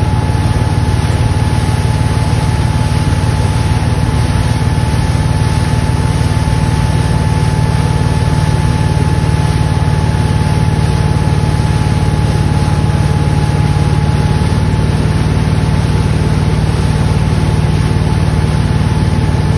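Motorboat engine running steadily under way while towing a skier, with a thin steady whine above the engine note and the rush of water and wake.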